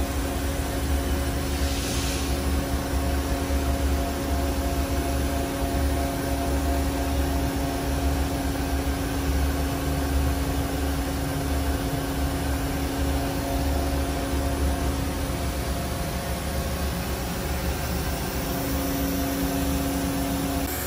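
Steady hum of machine-shop machinery running: a low drone with a few steady mid-pitched tones over a noise haze, and a brief hiss about two seconds in.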